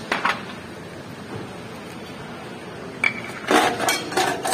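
Ceramic bowls and utensils clinking and scraping as falooda is served at a buffet counter: a single knock just after the start, then a quick run of ringing clinks from about three and a half seconds in.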